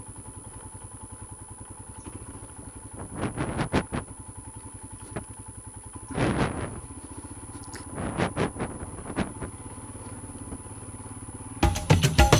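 Royal Enfield Himalayan's single-cylinder engine running with a steady quick beat as the bike rolls slowly along a dirt road, with a few short rough bursts of noise from the road along the way. Music comes in near the end.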